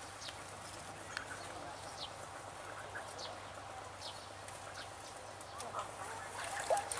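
Birds calling: short, high, falling chirps repeating about once a second over a steady background hiss.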